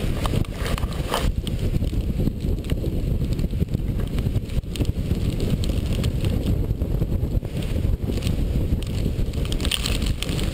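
Hurricane-force wind buffeting a camera microphone as a loud, continuous low rumble, with scattered sharp taps.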